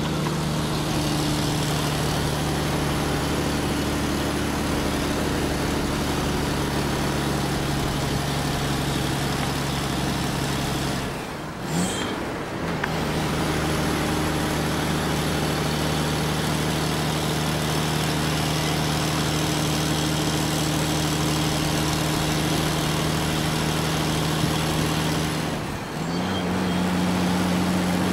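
A steady motor drone with a low hum and several held tones. It breaks off briefly about eleven seconds in and again near the end, coming back a little higher in pitch the second time.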